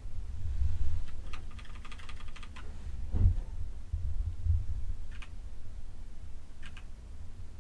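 Keys on a mechanical keyboard fitted with pudding keycaps being pressed: a quick run of clicks about a second in, then a few single presses. Under them is a low rumble, with a dull thump about three seconds in.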